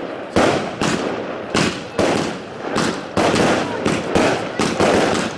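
Aerial fireworks bursting in quick succession: about ten sharp bangs in five seconds, each trailing off in an echo.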